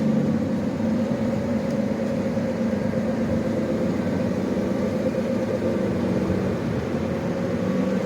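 Lamborghini Revuelto's V12 engine running steadily at low, even revs.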